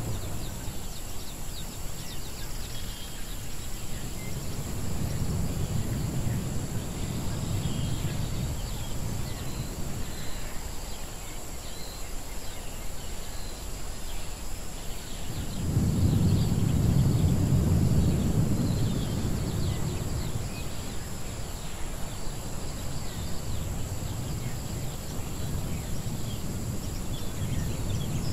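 Edited jungle-ruins ambience: a low rumble that swells and fades, loudest from about 16 to 19 seconds in, under many small high chirping calls and a steady high hiss.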